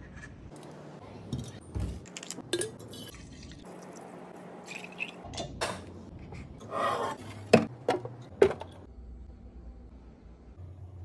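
Glass pitchers with plastic snap-on lids being handled: scattered clicks and clinks of lids and glass, with three sharp knocks, the loudest, a little past halfway.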